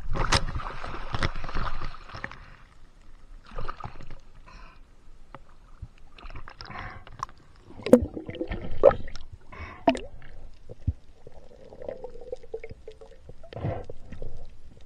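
Seawater splashing and sloshing around the camera at the surface for the first two seconds, then muffled underwater sounds: bubbling and a few sharp knocks and clicks as the speared fish and spear are handled.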